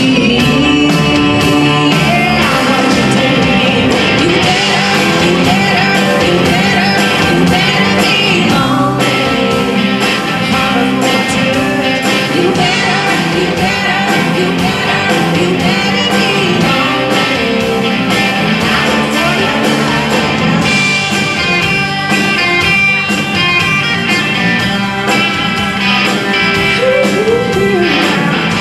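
A live rock band playing at a steady loudness: electric guitar and drum kit under a woman's sung vocal.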